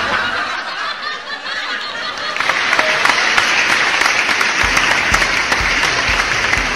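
Men laughing, then dense applause from about two seconds in, with a steady music beat of about two thumps a second joining near the end.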